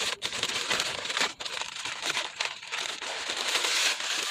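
Paper takeout wrapping and bag crinkling and rustling steadily as hands unwrap the food.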